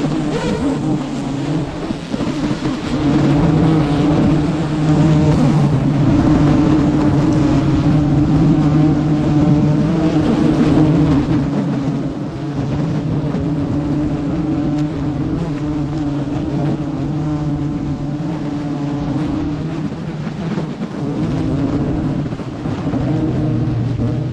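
Dense, steady buzzing of a large swarm of giant honeybees around their hive, with a wavering low hum.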